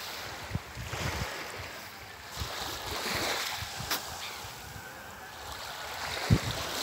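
Small waves lapping and washing up on a pebbly shore, the hiss of the wash swelling and ebbing. Wind buffets the microphone in low rumbles, with a sharp low thump near the end.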